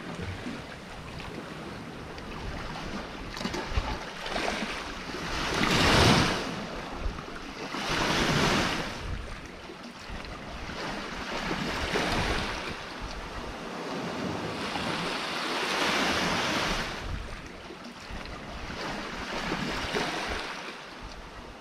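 Sea waves breaking and washing around rocks on the shore, the surf swelling and falling every few seconds, the biggest surge about six seconds in.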